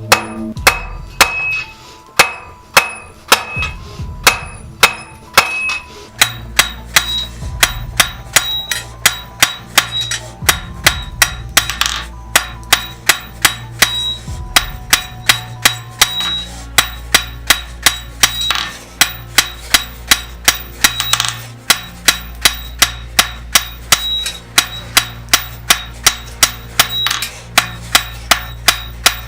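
Blacksmith's hammer striking steel on an anvil in a steady forging rhythm, about two to three blows a second, each blow ringing briefly. A low steady hum joins about six seconds in.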